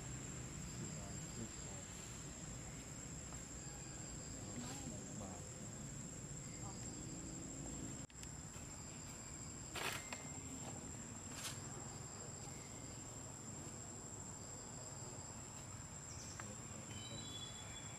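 Insects trilling: a steady, high-pitched drone over a low outdoor rumble, cutting out for an instant about eight seconds in, with two sharp clicks shortly after.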